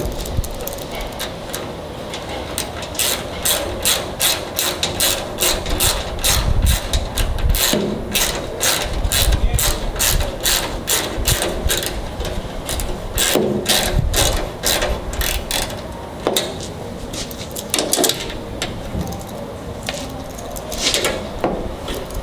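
A ratchet clicking in a quick regular run of about three clicks a second, then a few scattered clicks, as a hose clamp on the tailgate is tightened. Wind rumbles on the microphone underneath.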